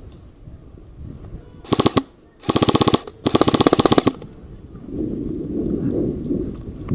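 Airsoft rifle firing three short full-auto bursts close by, each a rapid, even rattle of shots, the last the longest. Rustling movement follows near the end.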